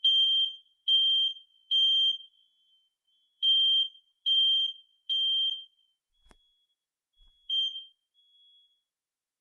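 Combination smoke and carbon monoxide detector sounding during a test: two rounds of three loud, high-pitched beeps, the temporal-three fire-alarm pattern. A click and one more short beep follow.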